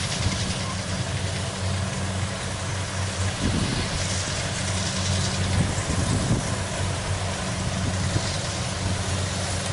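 Kubota DC70 Plus rice combine harvester's diesel engine running steadily: a low, even engine hum under a steady hiss.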